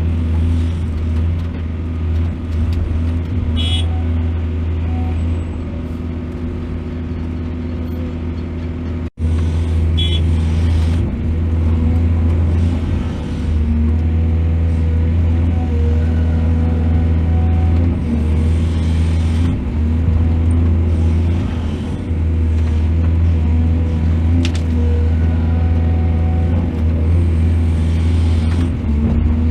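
Heavy diesel engine of an excavator running steadily with a deep, even drone, as soil is loaded onto trucks. The sound cuts out for an instant about nine seconds in.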